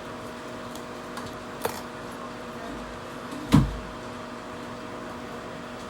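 Steady electrical hum of bench equipment, with a light click about one and a half seconds in and a louder knock about three and a half seconds in, as tools are handled on the workbench while solder paste is applied to a reballing stencil.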